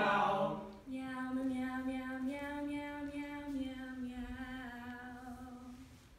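A woman's voice holding one long sung note that steps up slightly and back down, fading away, after a group of voices slides down in pitch at the start.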